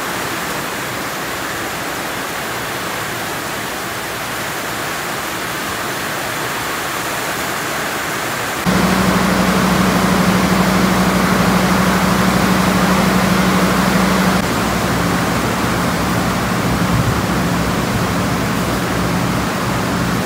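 Heavy rain pouring down, a steady hiss. About nine seconds in it cuts to a louder rush with a steady low hum, the idling engine of a diesel locomotive, a KAI CC 201.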